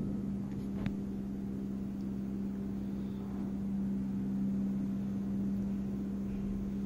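A steady low hum at one unchanging pitch, like an appliance motor running, with a single faint click about a second in.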